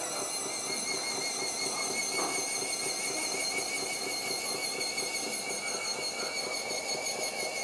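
Small electric gearmotor driving the screw bar that retracts the model ladder truck's extending arm: a steady high-pitched whine that wavers slightly in pitch.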